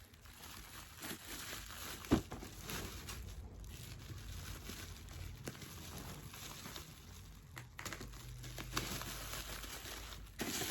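Bubble wrap and plastic packaging being unwrapped by hand, crinkling and rustling, with a sharp click about two seconds in.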